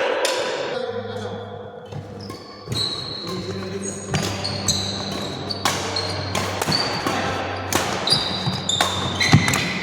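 A rapid, irregular series of sharp knocks and hits, several trailed by a brief high ring or squeak, over a steady low hum.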